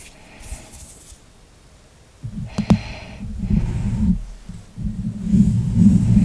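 Hand sounds close to the microphone: a sharp click about two and a half seconds in, then a low muffled rumble of hands moving and rubbing against the mic that grows louder toward the end.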